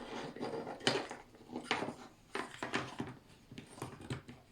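Irregular clicks and knocks of a small motor and kit parts being handled, turned and pressed together to snap the motor into its mounting hole.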